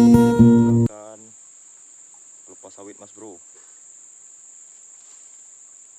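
Acoustic guitar music cuts off abruptly about a second in, leaving a steady, high-pitched drone of insects, with a faint voice briefly in the middle.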